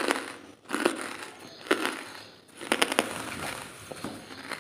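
Dry charcoal lumps crunching and crackling in repeated bursts, about one a second.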